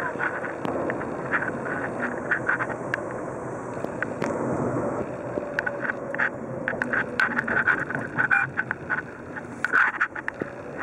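Steady road and wind noise heard from inside a moving car's cabin as it slows down, with frequent short clicks and rattles over it, most of them in the second half.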